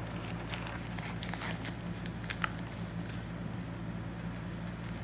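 Black plastic courier pouch crinkling and crackling in short irregular bursts as it is handled and worked open, over a steady low hum.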